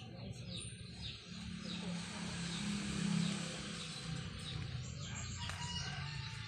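Small birds chirping, many short quick chirps, over a rush of rustling noise that swells and peaks about halfway through.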